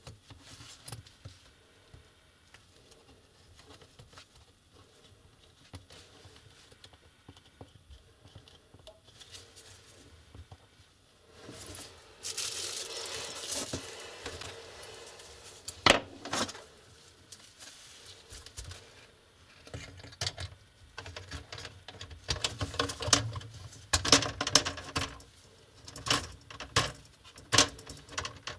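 Hands handling the plastic display lid of a Lenovo IdeaPad laptop. A rustle comes about twelve seconds in and a single sharp click a few seconds later, then a run of quick clicks and snaps as the screen bezel is pressed into its clips.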